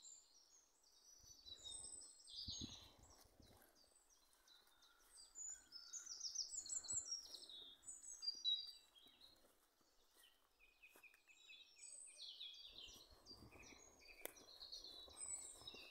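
Faint woodland birdsong: several small songbirds chirping and warbling at high pitch, overlapping throughout, with soft low rustling now and then.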